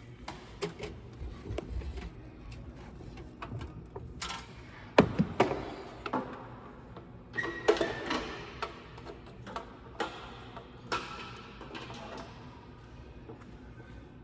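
Irregular clicks and knocks of objects being handled, with the sharpest knocks about five seconds in and again around eight seconds in.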